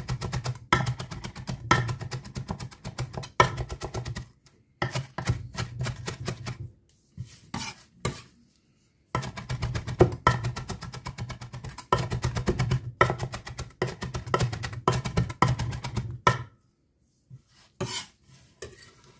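Zwilling chef's knife rapidly chopping fresh greens on a cutting board: long runs of quick, even knocks of the blade through the herbs onto the board, with short pauses between runs and only a few scattered taps near the end.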